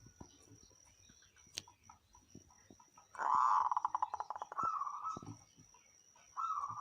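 Zebra dove (perkutut) cooing: about three seconds in, a fast rolling trill that settles into a held coo, then a shorter coo starting near the end.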